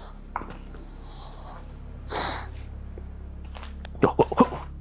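A man's sharp breath out through the nose, lasting about half a second, about two seconds in, over a low steady rumble. A few short, clipped vocal sounds follow near the end.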